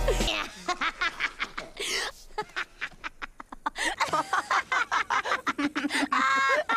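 Peridot, the cartoon character from Steven Universe, laughing: several short laughs edited back to back, a rapid run of choppy bursts with falling squeals near the end.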